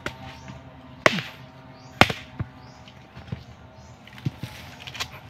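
Machete blade chopping into nipa palm fruit: a series of sharp hacks, the two loudest about one and two seconds in, with lighter knocks after.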